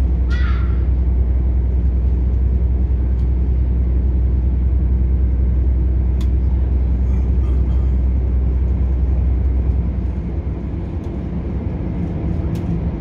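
Inside a British Rail Class 170 Turbostar diesel multiple unit under way: the steady low rumble of its underfloor diesel engine and wheels on rail. A brief high squeal comes just after the start, and a few faint clicks follow. From about ten seconds in the rumble eases slightly and its note shifts.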